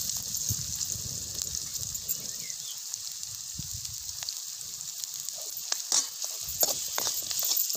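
Onions, red chilli powder, turmeric and masala sizzling in hot oil in a steel kadhai, with a steady hiss. From about five and a half seconds in, a steel spoon clicks and scrapes against the pan as the spices are stirred in to fry.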